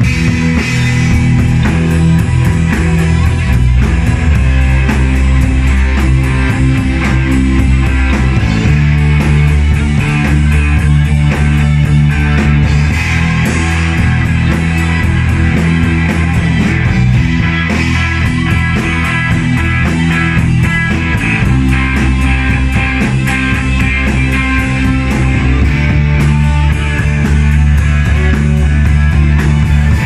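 Live rock band playing together: electric bass, electric guitars, electronic keyboard and a drum kit, keeping a steady beat.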